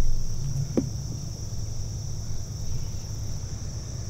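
Steady high-pitched chirring of insects, crickets or similar, with a brief low rush at the very start and a single soft thump about a second in.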